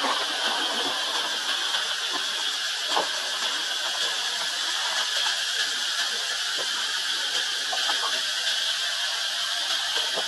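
Steady high-pitched drone of forest insects, with a few faint ticks.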